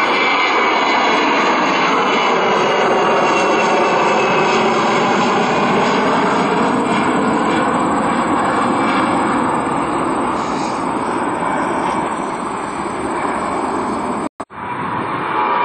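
Frontier Airlines Airbus A320 climbing out after takeoff, its twin jet engines making a loud, steady noise at full takeoff power that slowly fades as the plane climbs away. Near the end the sound cuts out abruptly for a moment, then another departing jet's engine noise starts up loud.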